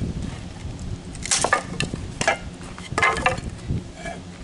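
Kindling being chopped from knotty red oak: several sharp wooden strikes of a blade splitting the wood, about a second apart. The knots make the wood hard to split.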